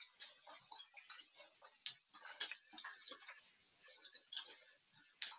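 Faint, irregular clicking and crackling of small plastic water bottles held in the hands and swung while marching on the spot.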